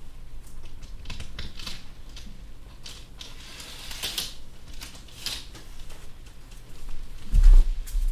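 Scattered clicks and short scratchy strokes close to the microphone, with a heavy low thump about seven and a half seconds in, over a steady low hum.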